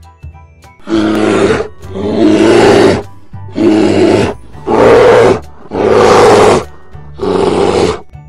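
A bear roaring six times in a row, each roar about a second long, over light background music.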